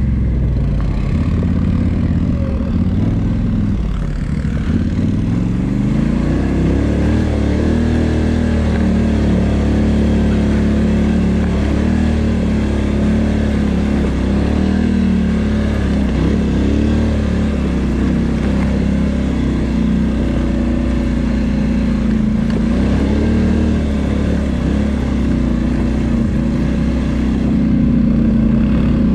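2019 Polaris Sportsman XP 1000 ATV's twin-cylinder engine running while being ridden along a trail. Its pitch dips and climbs again about four to six seconds in as the throttle eases off and reopens, then stays fairly even.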